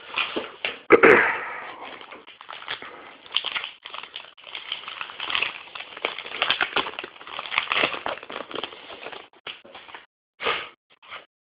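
Plastic wrapper of a baseball card pack crinkling and rustling as it is handled, with a loud crackle about a second in, and cards shuffling against each other.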